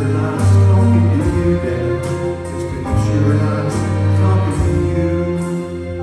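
Live bluegrass band backed by an orchestra playing a slow song, with long low bass notes held under the strings.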